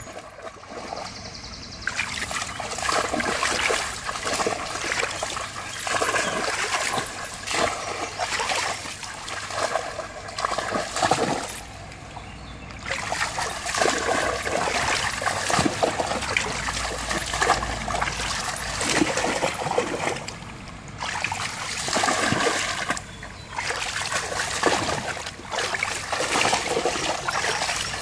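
A cocker spaniel splashing and bounding through a shallow running stream, water spraying around its legs in repeated surges with short lulls between.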